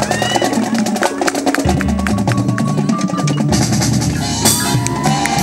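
Marching band playing: a run of rapid drum strokes from the drum set and marching bass drums over sustained low brass, with a bright cymbal-like crash about four and a half seconds in.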